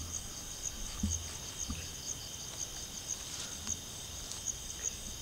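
Crickets chirping steadily at night, a high pulsing trill that repeats about three times a second over a steady insect hum. A few soft low thuds come in the first two seconds.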